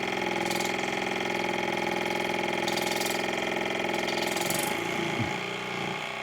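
Water pick (oral irrigator) pump motor buzzing steadily as it pulses a jet of warm soapy water into an ear, with three short bursts of hiss. Near the end the buzz breaks up and drops a little.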